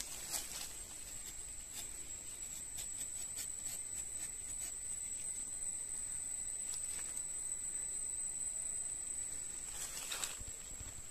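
A steady high-pitched insect drone over a faint hiss, with scattered light clicks and scrapes of a rubber-tapping knife cutting and peeling bark on a rubber tree, mostly in the first few seconds and again about ten seconds in.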